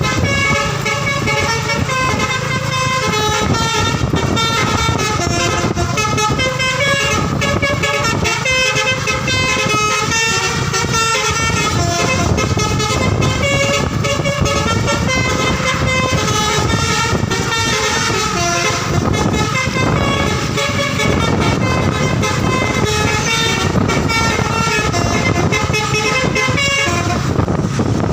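Telolet basuri V3 bus horn, a multi-trumpet air horn, playing a tune as a quick run of short, steady notes that change pitch one after another without a break.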